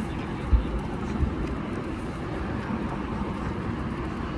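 Steady road-traffic noise from passing cars, with two brief low thumps about half a second and just over a second in.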